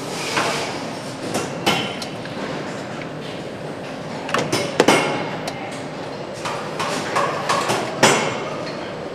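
Engine assembly-line noise: a steady factory hum with sharp metal knocks and clanks of parts being handled, the loudest strikes about five seconds in and again near the end.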